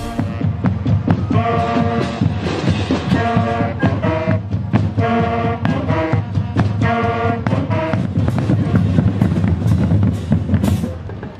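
School marching band playing: saxophones and other horns sound short phrases of held chords over steady drumming with bass drum. From about eight seconds in, the horns drop out and the drums carry on.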